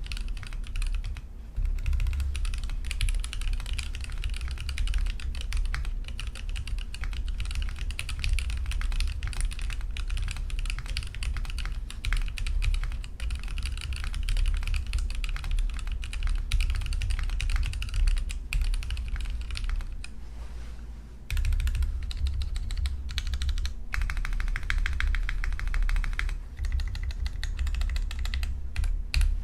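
Mechanical keyboard with Marshmallow linear switches (nylon housing, POM stem, progressive spring) and PBT keycaps being typed on in a steady stream of key clacks. After a short lull about two-thirds of the way through, the larger modifier keys are pressed, including a quick run of rapid presses.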